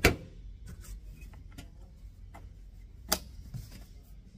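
Ratchet wrench working the nut on a Land Cruiser 79's wiper arm pivot: a sharp metal knock at the start, scattered clicks, and another sharp knock about three seconds in.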